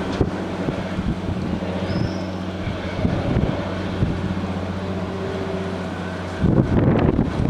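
An engine idles steadily with an even low hum. About six and a half seconds in, a louder, rougher noise cuts in over it.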